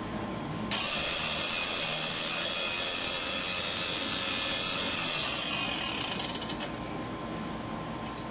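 Electric piston ring filer running, its abrasive wheel grinding the end of a top piston ring to open up the ring gap. A steady high whine starts abruptly under a second in and winds down with a fluttering fade about six and a half seconds in.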